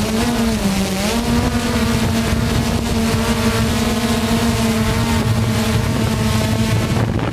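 Hubsan quadcopter drone's motors and propellers whining steadily. The pitch dips briefly about a second in, then holds, and near the end the whine gives way to a lower hum.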